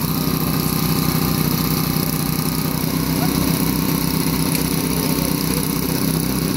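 Small petrol engine of a hydraulic rescue-tool power unit running steadily, with an even low pulsing.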